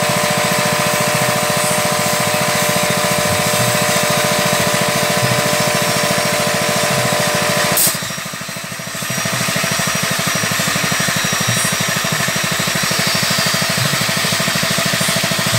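A motor-driven machine running steadily and loudly, with a rapid even pulse and a steady hum. About halfway through a sharp click comes, the sound dips for about a second, then carries on without its higher hum.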